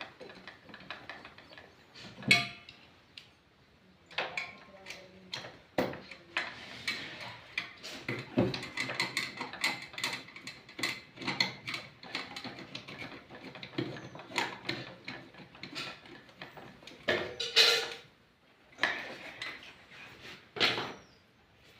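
Irregular mechanical clicking, knocking and clattering, with a few louder clusters of knocks.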